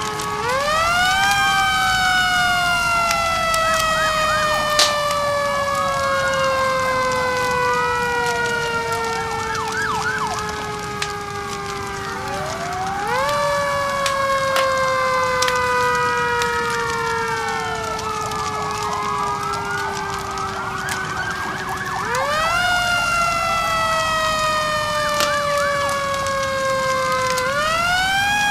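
Fire truck sirens wailing together: one rises sharply and then falls slowly over several seconds, over and over, while others sweep up and down faster. A fire crackles underneath.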